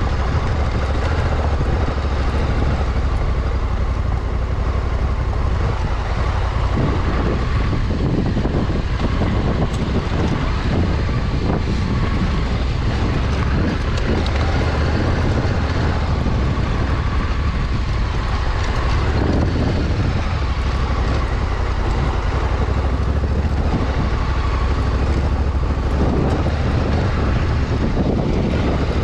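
Honda Africa Twin 1100's parallel-twin engine running steadily as the motorcycle rides over a rough dirt track, with wind noise on the microphone.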